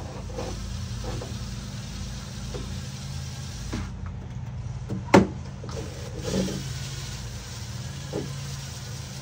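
Steady low motor hum with a few knocks on top; a sharp knock just after five seconds in is the loudest.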